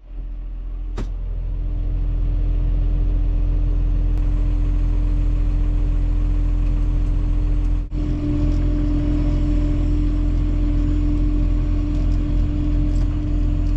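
Farm tractor engine running steadily, heard from inside the cab: a low drone with a steady hum, building up over the first couple of seconds.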